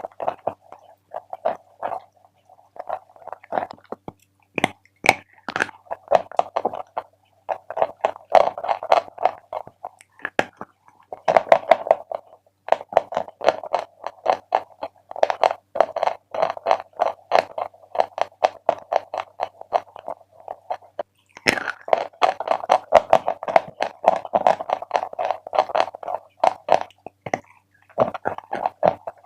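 Close-up chewing of chalk: dense runs of rapid, dry crunching bites, pausing briefly every few seconds.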